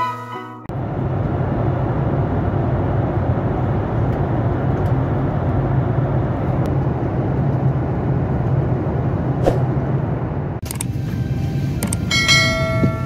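Steady in-flight cabin noise of a jet airliner, the engines and rushing air heard from a window seat. Near the end the noise changes to a few clicks and knocks in the cabin, and music comes in just before the end.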